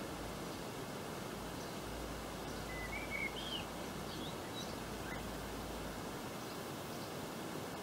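Garden ambience: a steady hiss of outdoor background noise with a few small birds chirping, the brightest chirps about three to four and a half seconds in.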